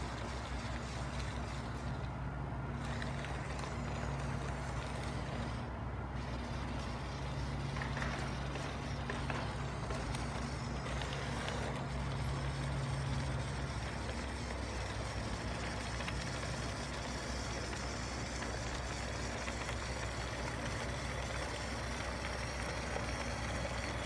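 1/16 scale remote-control M-113A2 model running, with a steady engine-like drone. The low hum drops away a little about fourteen seconds in, over a constant hiss.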